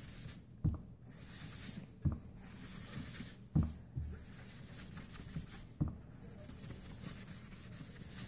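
Ink sponge being rubbed over cardstock, a steady scratchy rubbing. Four short dull taps break in about every one to two seconds.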